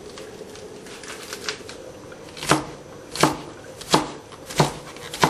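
Kitchen knife chopping lettuce on a plastic cutting board: a few light cuts, then firm chops at a steady pace, about one every 0.7 s.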